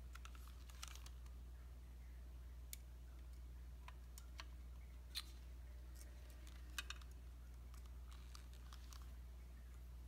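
Small scattered clicks and taps of a hand screwdriver working small screws into a hard-drive mounting bracket, the sharpest about five and seven seconds in, over a faint steady low hum.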